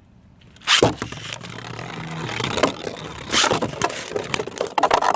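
Two Beyblade tops, 3D-printed, launched into a stadium with a sharp rip and clatter just under a second in, then spinning and scraping across the plastic floor with repeated sharp clashes between them, growing louder near the end in a run of hard collisions.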